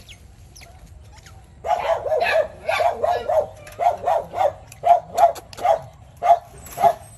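A puppy yelping over and over in quick, short cries, about two or three a second, starting about a second and a half in: distressed calls for help.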